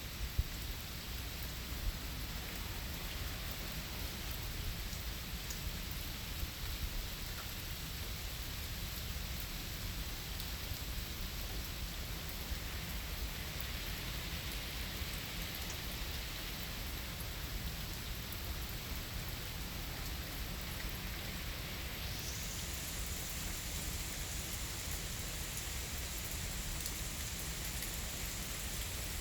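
Steady rain falling, an even hiss of drops with no change in strength. A faint high-pitched hiss joins in about two-thirds of the way through.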